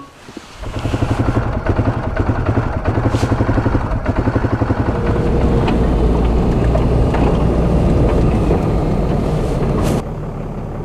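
Quad (ATV) engine running while riding, starting about half a second in with a regular pulsing beat. Near the end the sound drops suddenly to a lower, steady level.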